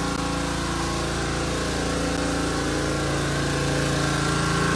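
Water blaster (pressure washer) engine running steadily, a constant pitched hum that gets slightly louder about four seconds in.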